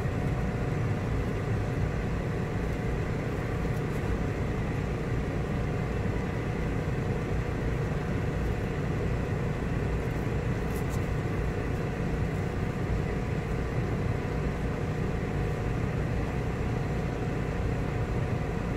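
Steady low mechanical drone with a faint hum in it.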